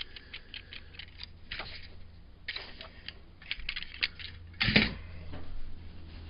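Small plastic model-railroad pieces clicking and rattling as they are handled and sorted, with one louder knock about three-quarters of the way through.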